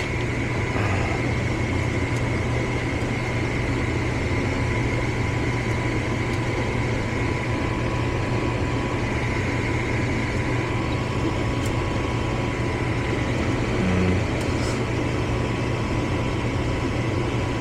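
Gas furnace's blower fan running with a steady hum. The control board keeps the fan on because it is flashing a four-flash open-limit fault.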